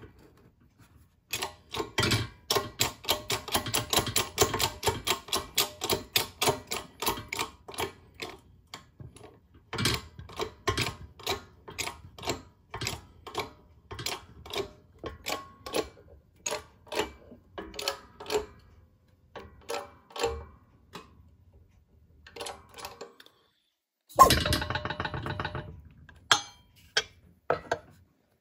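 Repeated hammer blows on a steel socket used as a driver, tapping a crankshaft bearing sleeve into an aluminium Can-Am engine case: quick strikes at about three to four a second, then slower taps about two a second. Near the end one louder metallic clang rings on for a second or so.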